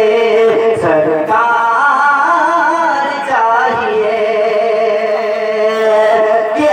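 Male voice singing an Urdu naat into a microphone over a PA, holding long notes with a slow wavering vibrato and sliding between pitches.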